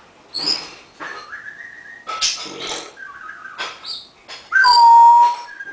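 African grey parrot making a string of short whistles, clicks and rasping squawks, then a loud, steady whistle held for nearly a second near the end.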